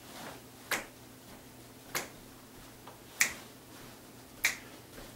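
Finger snaps keeping time for the dance steps: four sharp, evenly spaced snaps about a second and a quarter apart, over a faint steady hum.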